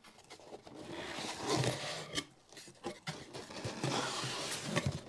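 Cardboard rubbing and scraping against cardboard as a small box is lifted and turned inside a larger shipping box, with a few light knocks and a short lull about halfway.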